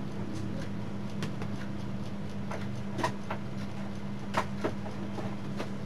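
Light, irregular clicks of buttons being pressed on a set-top receiver and a TV remote, the clearest about three and four and a half seconds in, over a steady low electrical hum.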